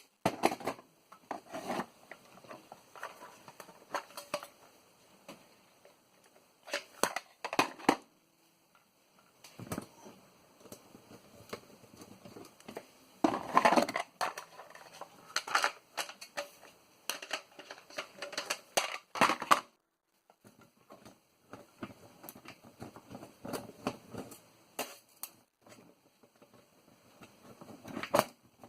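Irregular clicks, knocks and scrapes of small metal and plastic parts being handled, pried and unscrewed while a floppy disk drive is taken apart by hand.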